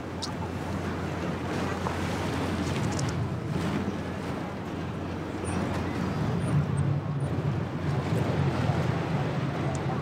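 A steady low engine rumble that gets a little louder in the second half, under a noisy haze of wind on the microphone.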